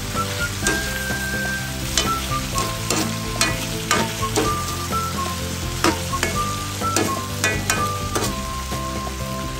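Chicken pieces sizzling in oil and sauce in a wok while a spatula stirs them, the spatula scraping and knocking against the pan at irregular intervals, over quiet background music.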